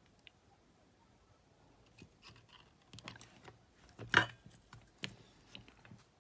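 Light clicks, taps and scrapes of small hand tools working on a metal battery-compartment contact, scattered through the second half, with one short, louder scrape about four seconds in.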